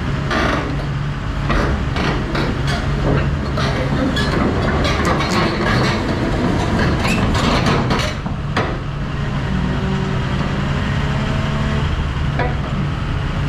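Heavy diesel machinery engine running steadily, with repeated metallic knocks and clatter over it.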